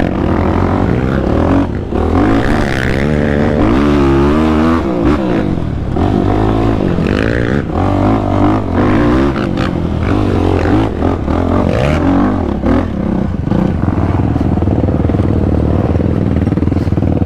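Yamaha YFZ450R sport ATV's single-cylinder four-stroke engine being ridden hard, its pitch rising and falling again and again as the throttle is worked.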